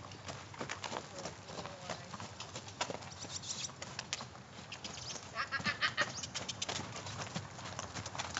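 Hoofbeats of a saddled horse cantering in a circle on a lunge line over a sand arena, heard as a run of short ticks. About five and a half seconds in there is a brief run of rapid high chirps.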